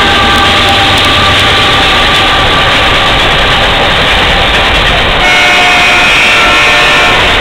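Canadian Pacific Christmas train passing close by at a crossing: a loud, steady rumble of the diesel locomotive and rolling railcars. Steady pitched tones fade out over the first three seconds, and another set of higher tones sounds from about five seconds in.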